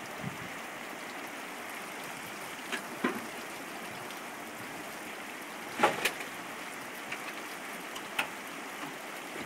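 Rushing mountain river, a steady even hiss of water, with a few light knocks, the loudest about six seconds in.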